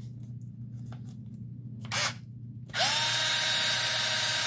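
Electric drill spinning a drive punch to polish it on a leather strop loaded with polishing compound. A brief blip of the drill about two seconds in, then it spins up just before three seconds and runs steadily with a high whine.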